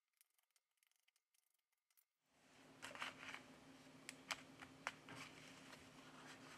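Faint, scattered sharp clicks of a plastic opening pick being worked around the edge of a Samsung Galaxy A6 2018's mid-frame. A faint low hum comes in about two seconds in.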